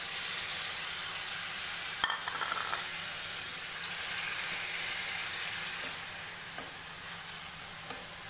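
Raw minced chicken sizzling in a frying pan of onion, ginger-garlic paste, oil and a little water as it is stirred and spread with a spatula. The sizzle is steady, with one sharp knock about two seconds in and a few light clicks later.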